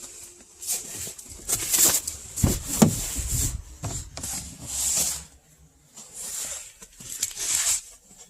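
Irregular rustling and rubbing handling noises, with a couple of dull bumps about two and a half to three seconds in, as interior parts are worked into the truck cab.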